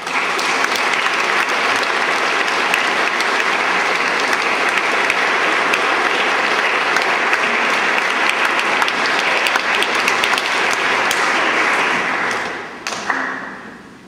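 Congregation applauding, starting abruptly and holding steady for about twelve seconds, then dying away.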